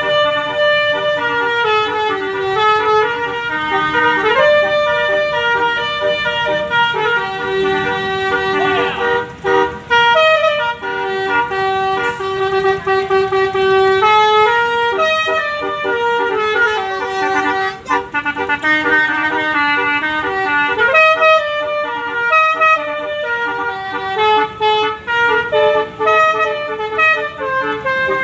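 Telolet horn with twelve trumpets playing a tune of stepped notes, several trumpets sounding together as chords.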